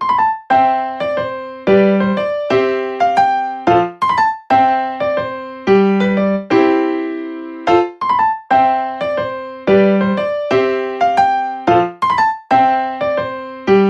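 Background music: a light electric-piano tune of struck notes that fade, playing a short phrase over and over above a low bass note.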